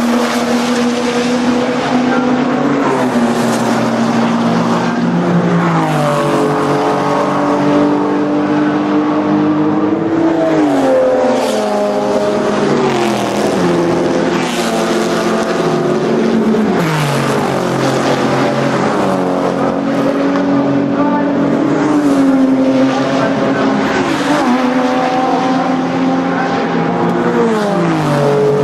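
Racing cars' engines at high revs going past one after another at speed, the engine note dropping in pitch again and again every few seconds as cars go by.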